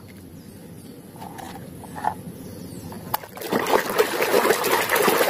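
A hand swishing and splashing through a tub of dirty wash water, starting about three and a half seconds in after a quieter stretch with a few faint knocks.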